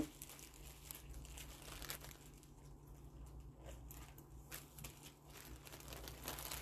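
Faint crinkling of a small clear plastic zip bag being handled, with a few soft scattered clicks.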